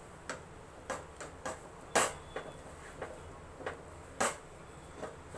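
Spatula knocking and scraping against a stainless steel pan while stirring a thick dal and sugar mixture for halva. There are about a dozen irregular clinks, the loudest about two seconds in and another strong one just after four seconds.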